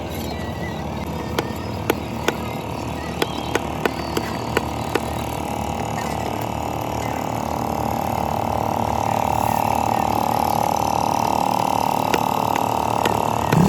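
Sharp knocks of a knife striking through fish onto a cutting block, about a dozen in the first five seconds and a few more near the end, over a steady engine-like hum that grows louder from about eight seconds in.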